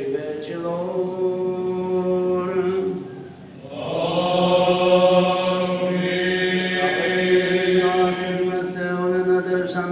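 Orthodox church chant: voices sing long held notes over a steady low drone. The singing breaks off briefly about three and a half seconds in, then resumes louder and fuller.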